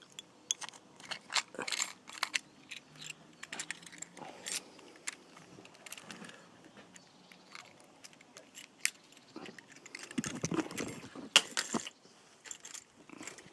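Keys and a key fob being handled, jangling and clicking irregularly, with a denser rattle about ten seconds in.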